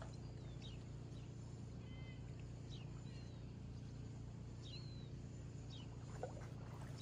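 Small bird giving short, high chirps, repeated about every one to two seconds, over a steady low background rumble.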